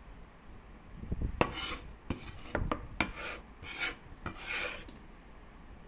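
A metal cleaver blade scraping chopped dried shrimp into a ceramic bowl: about five short scrapes, some starting with a sharp click of metal against the bowl.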